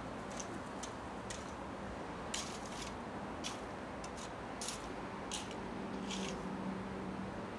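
Steady outdoor background noise with a faint low hum. Short, high-pitched ticks or chirps come at irregular intervals, roughly one a second.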